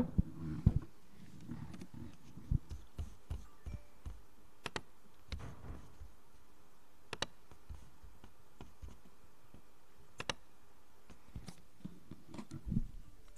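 Laptop keys and touchpad being pressed: scattered single clicks a second or two apart, with soft low bumps in between.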